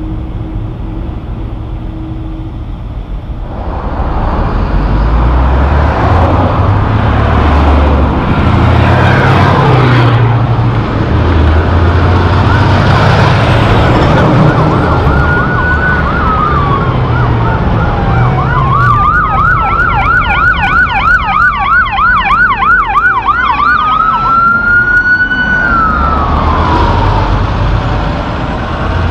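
Heavy trucks passing close on the road, diesel engines and tyre noise growing loud a few seconds in. About halfway through, an emergency vehicle siren sounds: a slow rising and falling wail, switching to a fast yelp for a few seconds, then back to a wail that falls away near the end.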